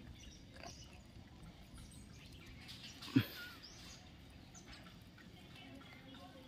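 Faint outdoor background with scattered short bird chirps, and a single sudden thump about three seconds in.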